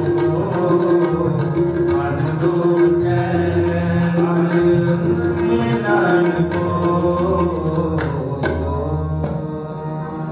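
Sikh devotional kirtan music: tabla drums played against a steady held note, with several sharp drum strokes about eight seconds in.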